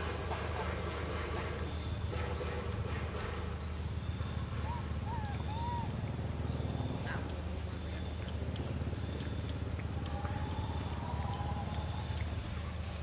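Outdoor animal ambience: a short, high, rising chirp repeating about once a second, a few brief mid-pitched calls around the middle and a longer one near the end, over a steady low rumble.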